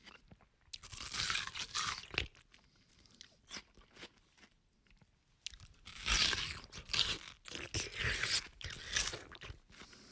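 A person chewing crunchy food close to the microphone: two spells of loud crunching, with quieter chewing clicks between them.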